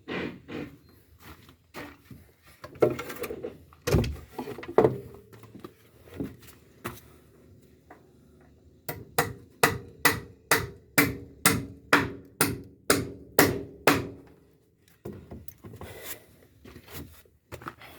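Hammer driving nails into timber while a deck frame is being fixed together: scattered knocks at first, then a steady run of about a dozen blows, roughly two a second, each ringing briefly.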